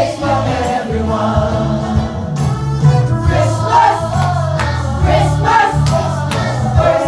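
Recorded Christian choral music: a choir singing over a steady bass line and beat.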